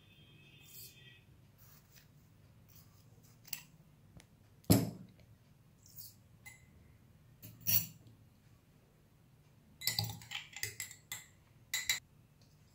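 Metal teaspoon clinking against a drinking glass and a small glass cup as granules are spooned in and stirred. There are a few scattered clinks, the loudest about five seconds in, and a quick run of clinks near the end.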